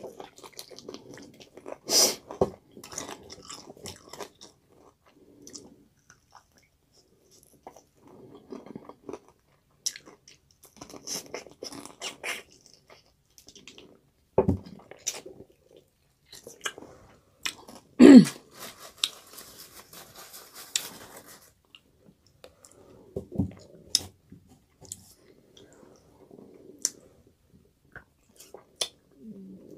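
A person biting into and chewing crispy Popeyes fried chicken close to the microphone. Wet chewing is broken by several sharp crunches of the breaded coating, the loudest a little past halfway.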